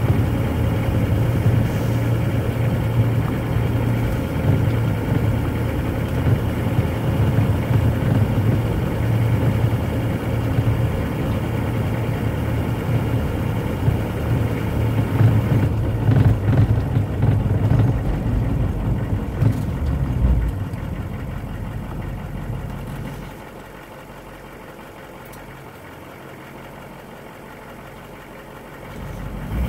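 1998 Hummer H1's 6.5-litre turbo-diesel V8 running at low speed and about 1,200 rpm, heard from inside the cab. About three-quarters of the way through it drops to a quieter idle of about 700 rpm as the truck comes to a stop.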